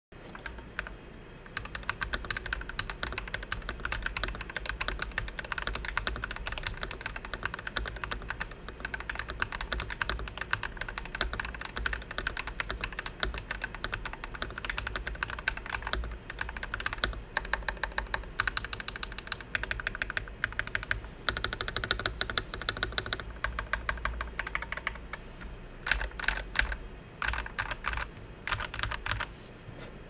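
Mechanical keyboard being typed on steadily: an FL Esports MK870 with Krytox-lubed KTT Wine 55g linear switches, a steel plate, PBT Cherry-profile keycaps and polyfill in a plastic case, giving fast runs of keystroke clacks. Typing starts about a second and a half in, and near the end the strokes come in separate, louder bursts with short gaps.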